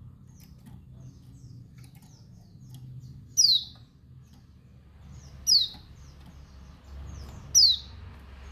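Female pleci (white-eye) of the dakun Bali type giving her call to males: three loud, sharp chirps falling in pitch, about two seconds apart, with faint short chirps in between.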